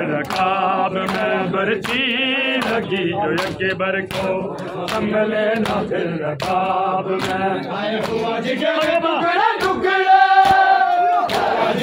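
Male mourners chanting a noha in chorus, with a steady beat of hands striking bare chests in matam. A voice holds one long high note near the end.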